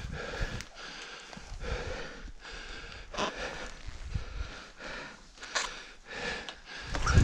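A runner's heavy, rapid mouth breathing, noisy breaths coming more than once a second, which the runner puts down to a nose broken in boxing.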